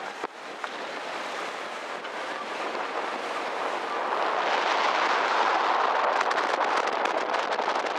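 Steady rushing of wind and water aboard a moving sightseeing boat. It builds to its loudest about halfway through and eases off at the end.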